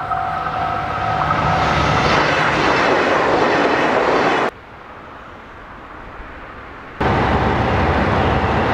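Level-crossing warning bell ringing with an even beat. It fades as the yellow Anpanman train, a JR Shikoku diesel railcar, runs over the crossing with a rising rush of wheel and rail noise. That rush cuts off abruptly about halfway through. After a quieter stretch, a loud steady rumble with a low hum starts near the end.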